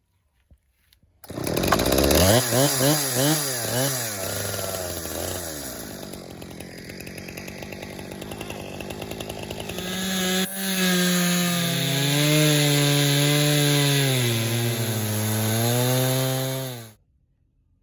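Husqvarna chainsaw with a ripping chain running in a Granberg Alaskan mill, ripping along an aspen log; its pitch wavers quickly at first, then sags and recovers as the engine works under the load of the cut. It starts abruptly about a second in and cuts off abruptly near the end.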